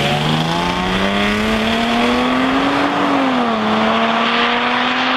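Jaguar saloon's engine accelerating hard: its pitch climbs steadily for about three seconds, drops at a gear change, then holds steady at speed.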